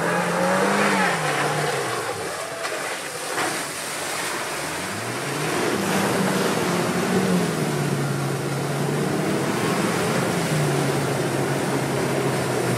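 Land Rover Defender 90's engine pulling through deep muddy water. The revs rise and fall near the start, climb again about five seconds in and then hold steady, under continuous splashing and sloshing from the wheels and bow wave.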